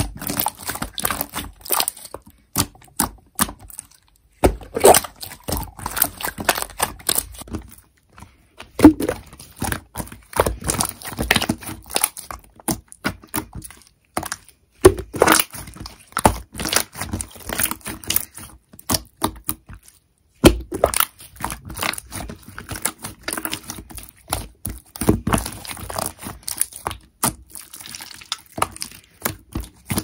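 White slime being stretched, folded and pressed between the fingers, giving dense, irregular crackling and popping clicks in runs with short pauses between handfuls.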